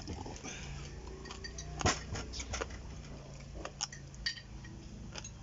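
Eating noises at a meal table: scattered light clicks and clinks, the sharpest about two seconds in, over a faint steady low hum.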